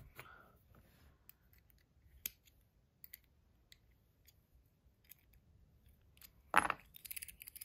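Small metal clicks and ticks from the Comma 2.0 fidget coin as it is worked by hand and loosened: faint scattered clicks at first, a louder clack about six and a half seconds in, then a quick run of light ratchet clicks near the end.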